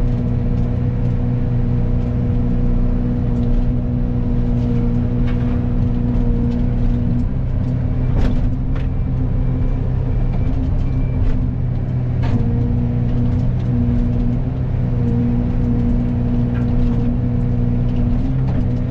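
Excavator diesel engine running steadily under load, driving a Fecon hydraulic forestry mulcher head. The mulcher's hum falters for a few seconds near the middle, and a few sharp cracks come through.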